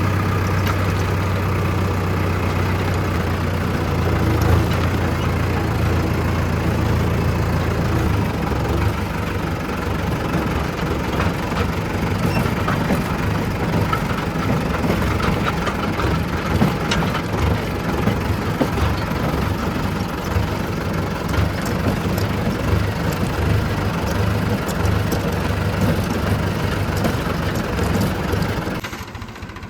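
Mahindra tractor's diesel engine running with the backhoe attachment: a steady hum for the first several seconds, then rougher and uneven from about eight seconds in, and much quieter just before the end.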